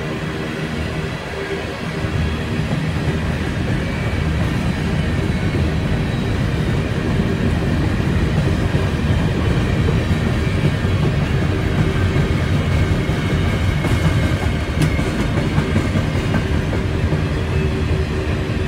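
Freight train of covered hopper cars rolling past: a steady low rumble of steel wheels on the rails with some clickety-clack, and a single sharp click near the end.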